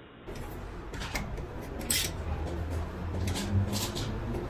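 A few short metallic clicks and clinks from a 14 mm socket and ratchet tightening an oil drain plug, over a low steady hum.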